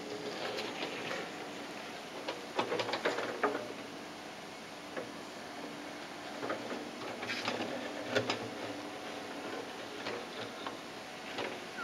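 Komatsu PC78MR-6 mini excavator digging a trench: its engine runs faintly and steadily under irregular clicks and rattles of soil and stones, thickest about two and a half to three and a half seconds in and again around seven to eight seconds in.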